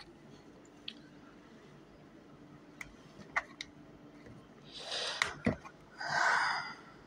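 Small plastic clicks and knocks from a powdered coffee creamer container with a flip-top cap being handled on a kitchen counter, followed by two short rushing noises about five and six seconds in.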